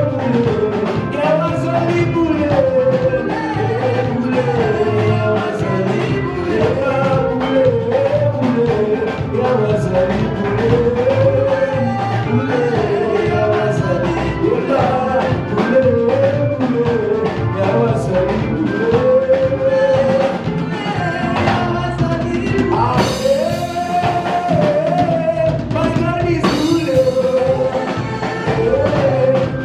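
Live church praise-and-worship music: a singer's melody over a full band with drum kit, with two cymbal crashes in the second half.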